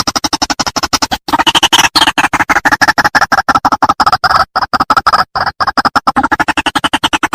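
White-breasted waterhen calling: a long, loud run of rapid, harsh croaking notes, about ten a second, broken by a short pause a little after a second in.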